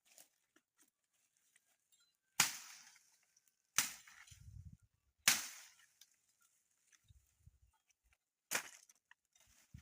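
Four sharp blows of a foice (long-handled brush hook) chopping dry dead branches into firewood, the first three about a second and a half apart and the last after a longer pause, each with a short ringing tail.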